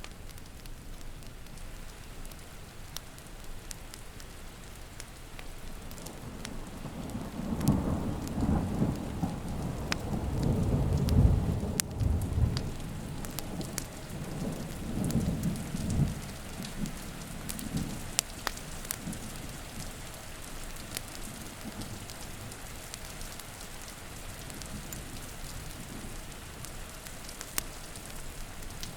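Steady rain with a long rolling peal of thunder that swells about a fifth of the way in, is loudest near the middle and rumbles away well before the end. Sharp pops from a crackling wood fire are scattered throughout.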